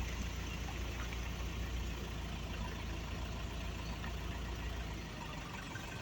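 A vehicle engine idling: a steady low rumble that eases slightly about five seconds in.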